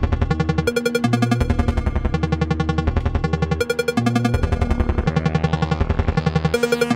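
Make Noise Spectraphon modular synthesizer in spectral amplitude modulation (SAM) mode, plinked by a rhythmic trigger stream: rapid, even pulsed notes in a stepping sequence, four pulses to each note, over a low-pass-filtered sub-oscillator bass. From about five seconds in the tone brightens over a couple of seconds, then drops back just before the end.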